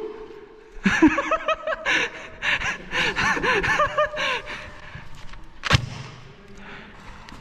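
Unclear calls and shouts from several voices for a few seconds, then a single sharp crack near the end.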